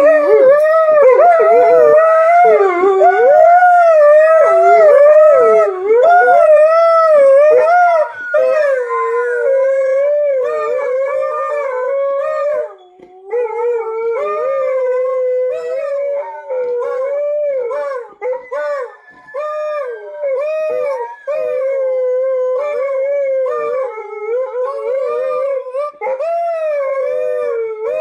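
Two Alaskan malamutes howling together, their pitch swooping up and down in the first several seconds and then settling into steadier held notes with short breaks.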